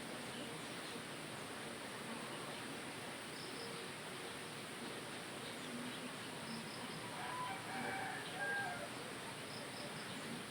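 Insects chirping steadily, with a short high chirp repeating about every three seconds. A louder bird call lasting about a second and a half comes about seven seconds in.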